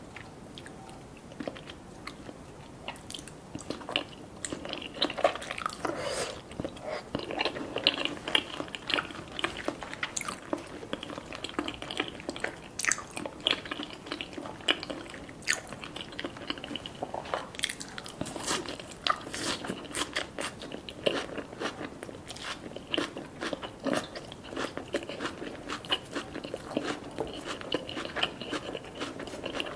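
A person chewing and biting mouthfuls of black rice sushi cones close to the microphone, with many small irregular clicks of mouth and food.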